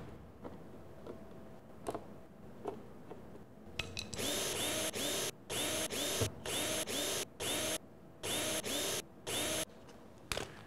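Cordless drill/driver backing out the screws of a centrifuge's sheet-metal top cover, run in a string of short bursts starting about four seconds in, after a few light clicks.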